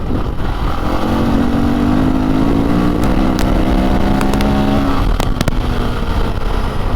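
Dirt bike engine pulling along a rough gravel road over a steady low rumble. The engine note comes up about a second in and fades after about five seconds, with a few sharp clicks in between.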